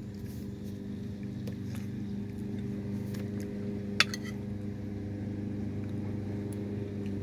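A metal spoon clinks against a plate about four seconds in, one sharp click followed by two quick fainter ones, as it scoops up corn. A steady low hum runs underneath.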